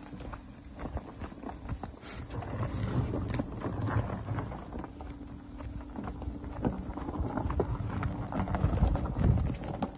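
Tyres of a Seres electric SUV crunching and crackling over loose gravel and dirt as it creeps along a rough track, with no engine noise, alongside footsteps on gravel and some wind on the microphone. The crunching swells about three seconds in and again near the end.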